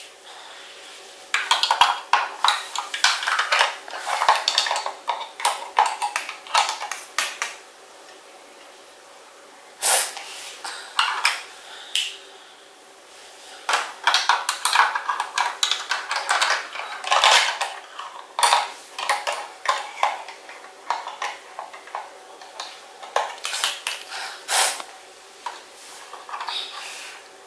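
Small hard plastic Playmobil toy pieces clicking and clattering as they are handled and set into a toy airliner's cabin, in irregular flurries of sharp clicks with short pauses between.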